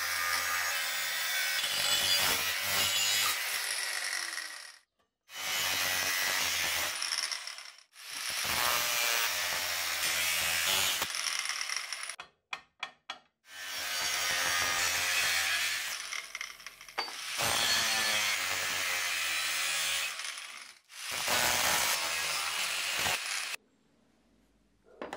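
A tool rasping against steel in five bouts of about two to four seconds each, with abrupt breaks between them and a few short clicks halfway through.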